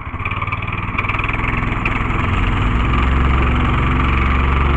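Small single-cylinder petrol engine of a Woodster PC 13 plate compactor (4.8 kW / 6.5 hp) on its first cold run, speeding up from idle and getting louder over the first couple of seconds, then running steadily at the higher speed.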